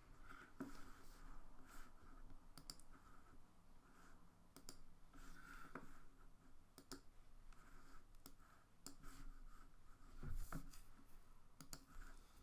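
Faint, irregular clicks of a computer mouse and keyboard being worked at a desk, with a soft low thump about ten seconds in.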